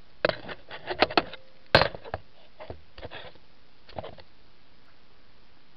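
Camera handling noise as the camera is set down: a cluster of knocks and scraping clicks, the loudest just under two seconds in, a few fainter ones up to about four seconds in, then only steady hiss.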